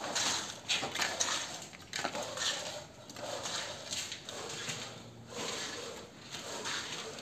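Wet cement mortar poured from a bucket into the gap behind a wall tile: gritty sliding and slopping in uneven bursts as the bucket is tipped and shaken.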